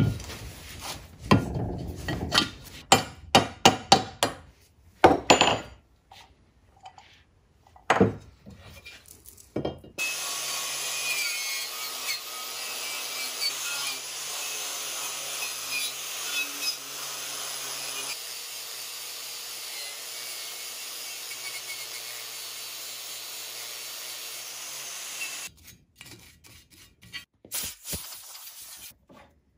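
Irregular metal clanks and knocks for about the first ten seconds, from a combination wrench working a nut on a cast-iron drill press base. Then an angle grinder with a nylon abrasive wheel runs steadily against the cast-iron table for about fifteen seconds, scrubbing off dirt while leaving the paint, and stops. A few faint clicks near the end.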